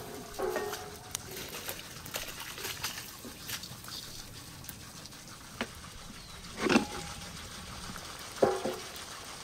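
Metal cookware knocking together, each clank ringing briefly: one just after the start, a louder one about two-thirds through, and two quick ones near the end, over a soft steady background with small clicks.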